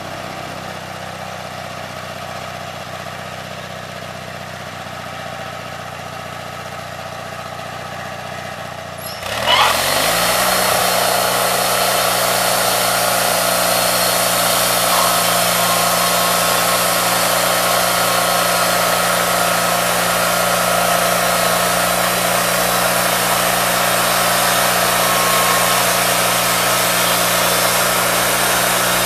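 Portable band sawmill engine idling, then throttled up about a third of the way in with a quick rise in pitch, engaging the band blade. The engine and blade then run steadily and louder as the saw head cuts along a log.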